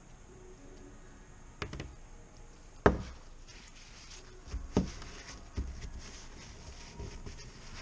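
Aluminium oil filter adapter knocking on a wooden workbench as it is handled and set down, one sharp knock about three seconds in being the loudest, followed by softer knocks. Between them a paper towel rustles in gloved hands.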